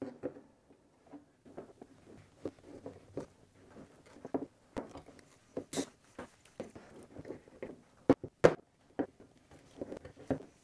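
Knipex wire strippers cutting through a heavy welder extension cord: a run of irregular clicks and crunches as the jaws work through the jacket and copper, with two sharp snaps a little past eight seconds in.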